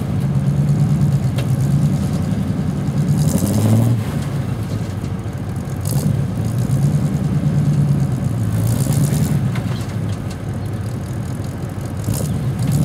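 Off-road 4x4 truck engine running under load, revving up in pitch a few times, around four seconds in and again near the end, as the truck works its way over a rock ledge.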